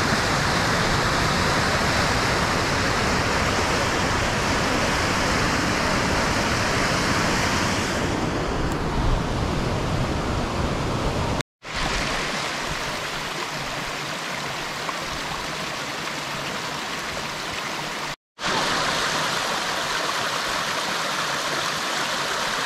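Mountain stream rushing and splashing down small rocky cascades, a steady loud rushing. It cuts out abruptly twice, about halfway through and again near the end, each time coming back with a slightly different sound.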